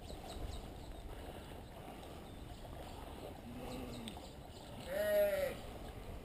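Sheep bleating twice: a faint, lower bleat about three and a half seconds in, then a louder, higher one about five seconds in.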